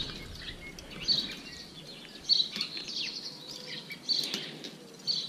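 Small songbirds singing, with short high chirping phrases about every second.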